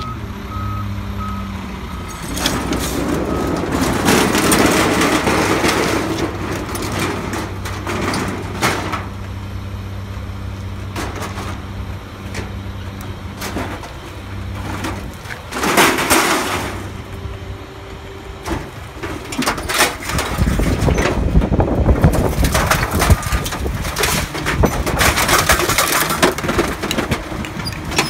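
Rear-loading garbage truck running while a stainless steel barbecue grill is loaded into the hopper and packed by the hydraulic blade: repeated bursts of metal crunching, scraping and banging, heaviest in the last third. A reversing beeper sounds for the first couple of seconds.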